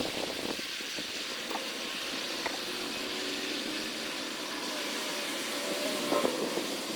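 Forge running with a steady hiss as a steel drift heats toward critical temperature for normalizing, with a few faint clicks.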